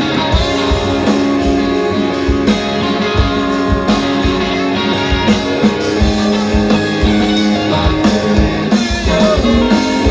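Rock band playing an instrumental passage: guitar carrying held chords and lines over a steady drum beat and bass, with no vocals.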